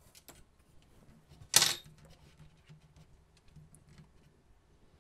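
Light clicks and taps of hands handling 3D-printed plastic brackets on an aluminium extrusion frame, with one louder short clatter about a second and a half in.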